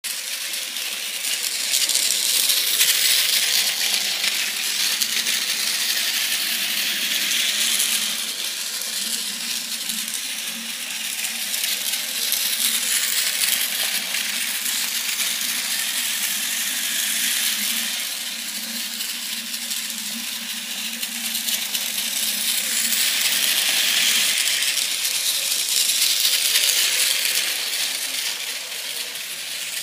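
Plarail battery-powered toy Shinkansen, a refurbished 200 series, running on plastic track: a steady rattling clatter of its gears and wheels over a low hum. It swells louder and fades several times as the train circles past close by.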